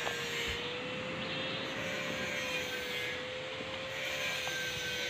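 A motor's steady drone: one held hum that wavers slightly in pitch, over a constant hiss.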